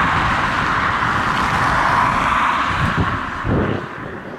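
Boeing 787-9's GEnx-1B turbofan engines running at taxi power, a steady jet-engine rush, with wind buffeting the microphone. The level drops about three and a half seconds in.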